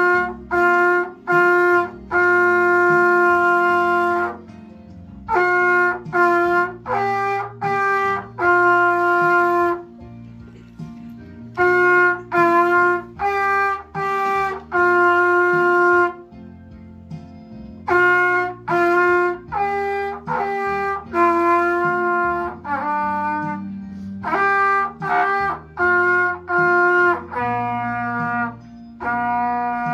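Trumpet playing a simple melody of separate held notes in short phrases, with brief pauses between phrases.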